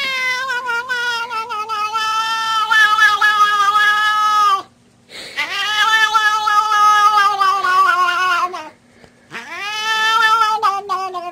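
A cat yowling in three long, drawn-out calls of a few seconds each, the pitch wavering a little and sagging at the end of each call; the third runs on past the end.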